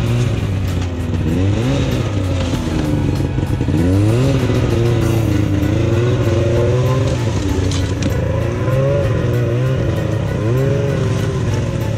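Polaris Indy snowmobile engine revving up and down again and again under load as the machine is worked through slush and water across a pressure crack in the ice.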